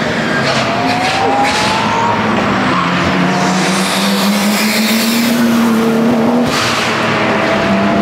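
Turbocharged straight-six engine of a 1992 Nissan Skyline GTS-t being driven hard, its revs climbing about a second in and rising and falling again later as it accelerates and changes gear.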